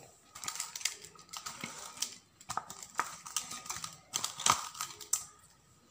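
Pomfret pieces being mixed by hand with spice masala in a stainless-steel bowl: irregular squishes and light clicks of fish and fingers handling the coated pieces, dying away about five seconds in.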